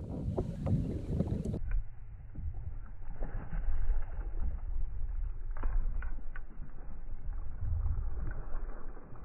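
A hooked largemouth bass splashing at the surface while being reeled toward a kayak, over a low rumble of wind and water, with a few sharp clicks. The sound turns dull and muffled about a second and a half in.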